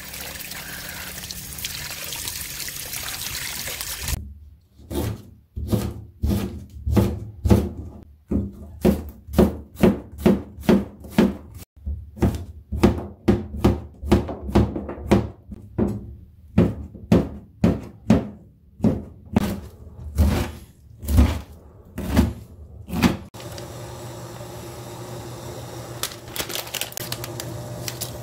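Water pouring and splashing over hands and boiled radish greens in a steel basin. Then a knife chopping zucchini on a plastic cutting board in a steady run of sharp knocks, about two a second. About three-quarters of the way through the chopping stops and a steady low hum follows.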